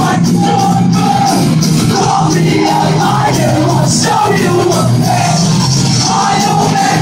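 Pop-punk band playing a song live, loud: electric guitars, bass and drums with a lead vocal.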